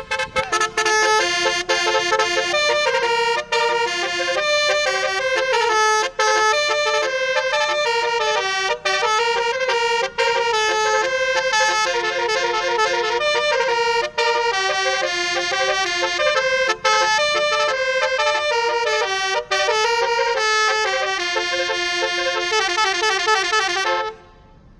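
A loud multi-note musical horn playing a quick melody, its pitched notes changing several times a second; it cuts off abruptly just before the end.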